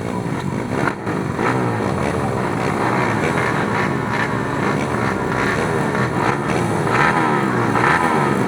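Several small racing motorcycle engines revving up and down together as the bikes race round an oval track, their pitches rising and falling against one another.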